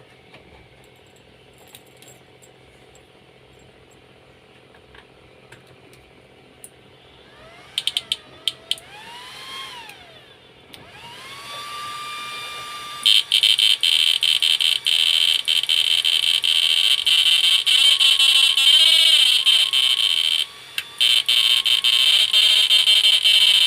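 Small MOSFET flip-flop inverter whining under load. A faint hum gives way, about a third of the way in, to a tone gliding up and down. It then settles and, from about halfway, becomes a loud steady whine broken by rapid crackling stutters.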